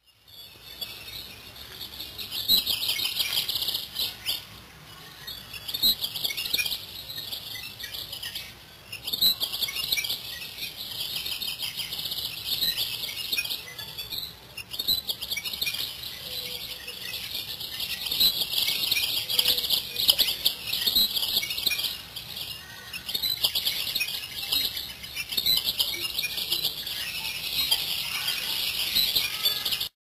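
Songbirds chirping and singing, a dense run of high-pitched calls with only brief pauses.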